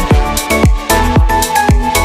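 Background electronic music with a steady beat of deep kick drums.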